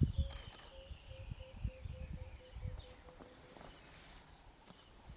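Outdoor bush ambience with birds calling: a long, slowly falling whistle, a steady run of short low notes that stops about three and a half seconds in, and a few short high chirps near the end, over scattered low rumbling.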